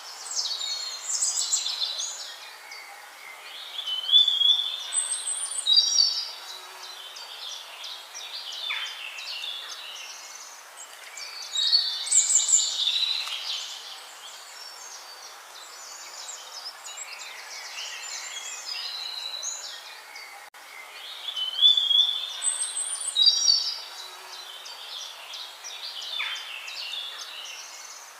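Songbirds singing and calling: bursts of high-pitched chirps and quick whistled phrases over a steady background hiss, with quieter stretches between the bursts.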